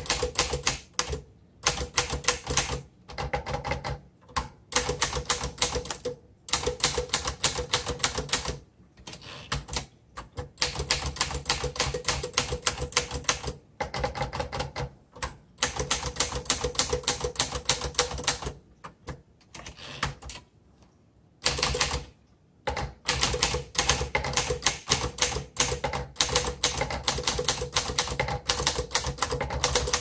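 A 1949 Underwood Champion Finger Flite manual typewriter being typed on: quick runs of key strokes, each typebar clacking against the platen, broken by short pauses. The longest pause comes about twenty seconds in.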